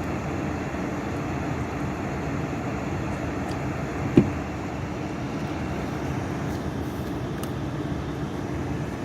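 Steady low rumble of a stopped vehicle idling in a blizzard, with a single sharp knock about four seconds in.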